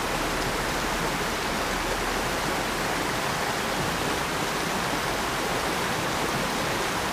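Steady rush of a shallow stream flowing over a stony riffle.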